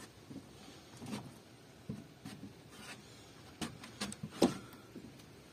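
Scattered light knocks and clicks, about eight in all, as chopped pieces of sheep's head and bone are picked up and set down on a wooden table; the loudest come a little past halfway.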